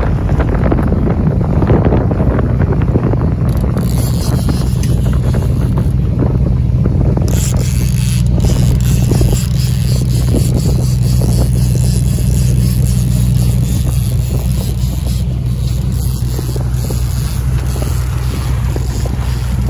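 Boat engine running steadily with a constant low hum, and wind buffeting the microphone.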